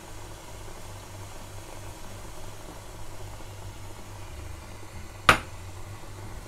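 A spoon stirring and lifting steamed sticky rice in a bamboo steaming basket set over a pot of water, against a steady low hum. About five seconds in there is a single sharp click, the loudest sound.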